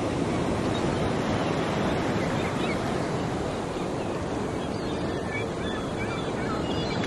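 Steady rush of sea surf with wind, an even noise that holds without a break and cuts off suddenly just after the end.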